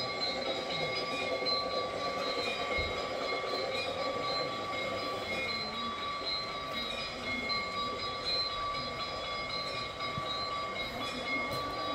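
G-scale garden-railway model train running along its track: a continuous rolling rattle with steady high-pitched tones over it.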